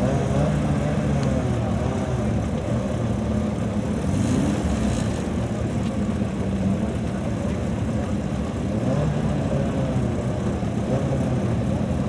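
Car engines idling steadily, with a brief rise in pitch about four seconds in.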